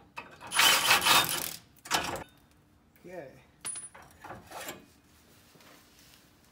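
Clatter and scraping of metal tools and hardware being handled on the concrete under a truck, loudest in a rush of about a second near the start, then a second short clatter and a few small ticks and scrapes.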